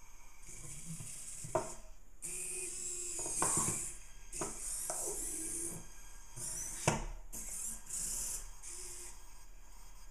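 I-SOBOT humanoid robot's servo motors whirring in short bursts as it moves its limbs, with a few knocks of the robot against the wooden tabletop, the loudest about seven seconds in.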